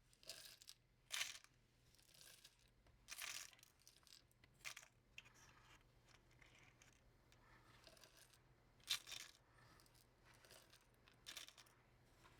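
Small beads being dropped and poured into storage bins: faint scattered clicks and rattles, in short bursts a second or two apart.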